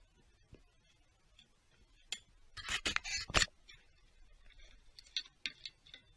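Light metallic clicks and clinks from hand work on the engine: one click about two seconds in, a quick cluster of clinks just after, and a few single clicks near the end.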